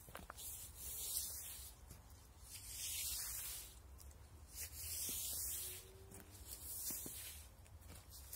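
Long-handled broom sweeping dead leaves across paving slabs: a bristly swish with each stroke, four strokes about two seconds apart.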